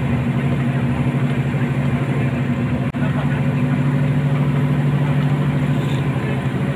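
Mercedes-Benz OF 1623 bus's front-mounted diesel engine running at a steady cruise, heard from inside the cabin with road noise, as a steady low drone. A brief click about three seconds in, after which the hum shifts slightly lower.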